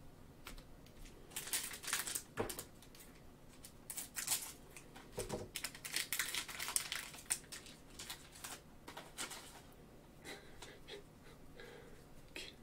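Foil trading-card pack wrapper crinkling and tearing in gloved hands as the pack is opened, in several bursts of rustling, the longest from about four to seven seconds in.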